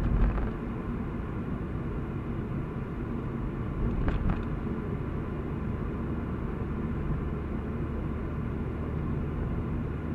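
Car driving on a mountain road, heard from inside the cabin: steady low road and engine rumble, with a brief knock at the very start and another about four seconds in.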